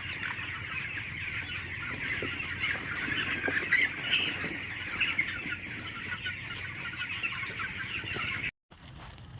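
A flock of desi chickens clucking and chattering together, many overlapping calls at once, cut off abruptly near the end.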